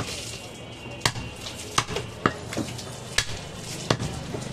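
Heavy butcher's cleaver chopping bone-in goat meat on a wooden log chopping block: about six sharp chops at uneven intervals.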